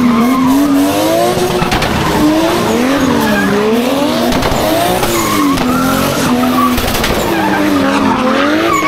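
Drift car engine revving hard, its pitch rising and falling again every second or two, while the tyres skid and squeal.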